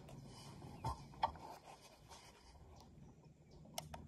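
Faint clicks and taps of a muzzleloader being handled during reloading: a couple of light knocks about a second in and two quick clicks near the end.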